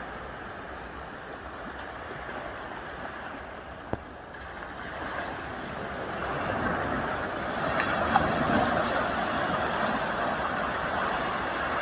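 Sea waves washing, growing louder over the second half as a bigger wave surges in, with a sharp click about four seconds in.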